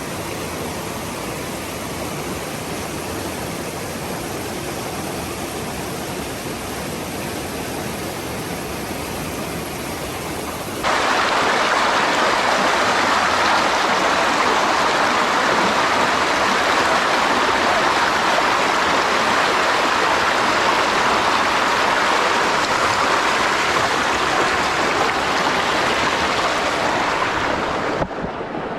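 Rushing river water running over rocks, a steady rush with no pitch. It jumps suddenly louder about a third of the way in and drops back near the end.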